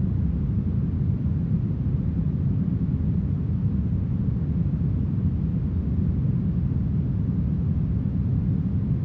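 Steady, smoothed brown noise: an even, deep hiss weighted heavily toward the low end.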